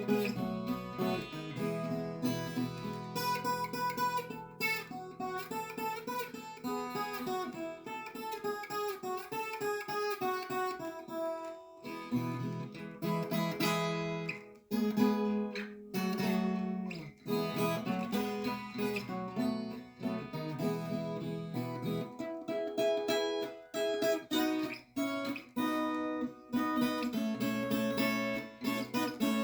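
Background music played on acoustic guitar, strummed and plucked, with a steady rhythm.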